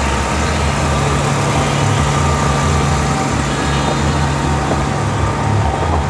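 Case IH tractor's diesel engine running hard and steady under load while dragging a weighted tractor-pulling trailer down the track.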